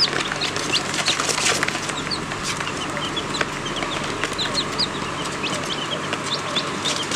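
Baby chicks peeping: many short, high cheeps scattered and overlapping throughout, with a sprinkling of sharp clicks.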